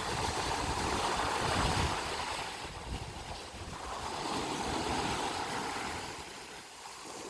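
Sea waves washing in, the surf swelling and easing off twice.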